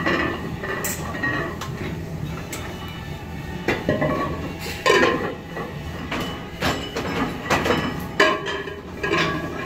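Repeated metal clinks and clanks from the iron plates on a loaded barbell rattling during back squat reps. The loudest knocks come about 5 s in and about 8 s in.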